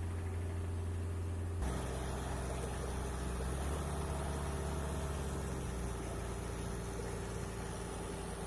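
Diesel engine of a concrete mixer truck running steadily, with an abrupt change in its sound about a second and a half in.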